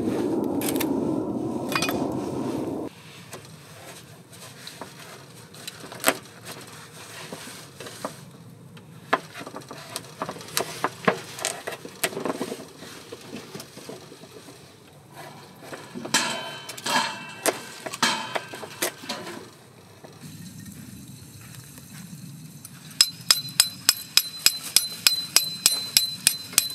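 A low rushing noise for the first three seconds, then a folding knife cutting through a hard kabocha squash: scattered knocks and clicks of the blade pushing through the tough flesh and striking the board, thickest around two thirds of the way in. Near the end come sharp metallic clinks with a ringing edge, about four a second.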